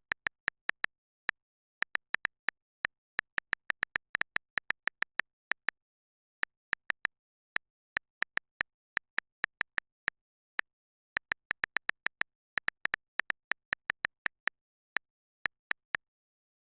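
Phone on-screen keyboard key-press sounds: short, high ticks at irregular intervals in quick runs, like typing, with dead silence between them.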